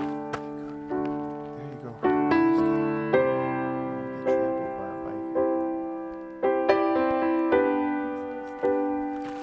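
Slow solo piano music: notes and chords struck about once a second, each ringing out and fading before the next.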